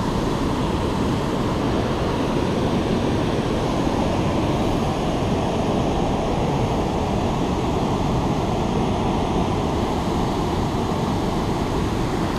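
Steady rush of a shallow river flowing over rapids.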